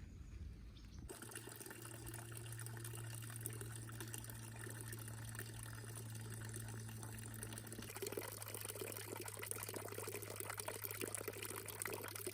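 Water running, over a steady low hum that starts about a second in; the water sound grows fuller about eight seconds in.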